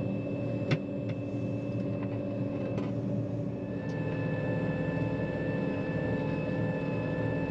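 Farm machine engine running steadily with a constant hum. About four seconds in, a steady high whine joins it, and a few light clicks sound early on.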